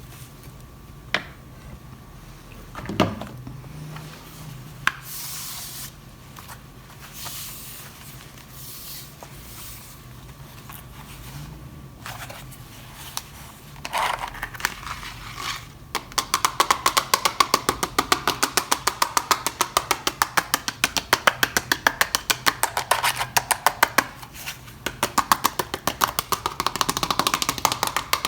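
Toys and plastic packaging handled, with scattered clicks and short rustles. From about sixteen seconds in comes a louder, fast, even run of clicks, around ten a second.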